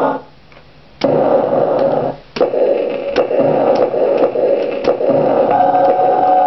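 Circuit-bent toy keyboard square-wave synth putting out a harsh, noisy buzzing drone with sharp clicks. It cuts out briefly twice early on the way through, and steady tones come back near the end.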